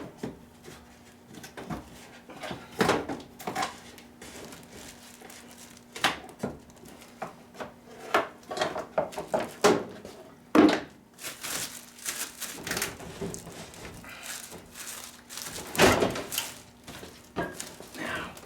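Irregular knocks, thumps and scrapes as an over-the-range microwave oven is shifted against its wall mounting bracket and the cabinet above while being hung, with a few louder bumps.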